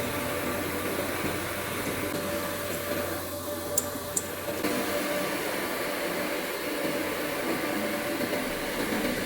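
Steady hum and hiss of orbital pipe welding equipment running, with two sharp clicks close together about four seconds in.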